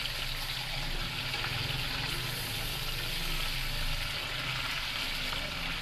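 Chicken leg pieces sizzling steadily in hot oil in an aluminium karahi, being fried to light golden.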